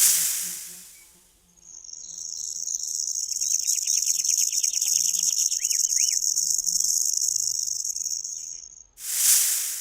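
Snake hissing in a sharp burst that fades over about a second, and again near the end. Between the hisses runs a long, steady, high-pitched buzz, with a few short bird chirps in its middle.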